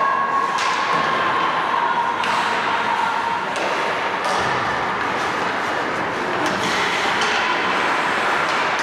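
Hockey game sounds in a rink: a steady noisy wash of play with several sharp knocks scattered through, typical of sticks and puck striking and skates cutting the ice.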